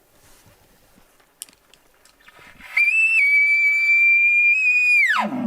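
Elk bugle call blown close by: a high, clear whistle that breaks briefly upward, holds steady for about two seconds, then drops steeply into a low growl near the end, imitating a bull elk's bugle.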